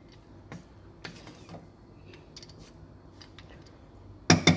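A wooden spatula stirring cooked rice in a nonstick pot: soft scrapes and light clicks, then a few loud knocks near the end.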